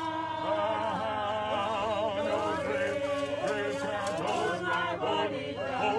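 A group of mourners singing a gospel hymn together, many voices overlapping.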